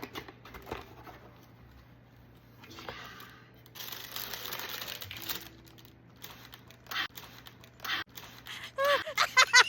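Paper packaging crinkling and rustling in bursts as a shoe box is unwrapped, with the longest stretch of crinkling about four seconds in.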